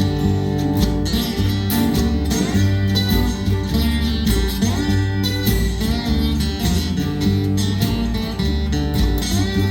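Acoustic folk band playing live, with strummed and picked acoustic guitar over a steady low bass line.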